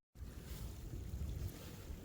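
Wind buffeting the microphone outdoors: an uneven low rumble with a faint hiss above it.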